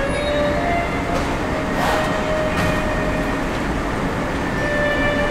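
Subway train sound: a steady rumble with thin whining tones that drift slightly in pitch.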